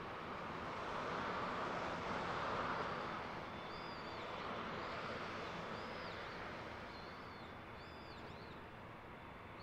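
Cessna Citation V business jet's twin Pratt & Whitney JT15D turbofans running at taxi power, a steady rush with a thin high whine that swells in the first few seconds and then slowly fades. From about four seconds in, a small bird chirps repeatedly over it.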